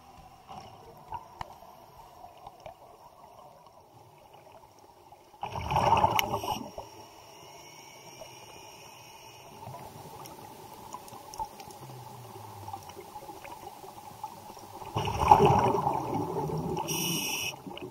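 Underwater sound recorded in a camera housing: a steady muffled wash with scattered faint clicks, broken twice by loud bubbling bursts of a scuba diver exhaling through the regulator, a short one about six seconds in and a longer one near the end.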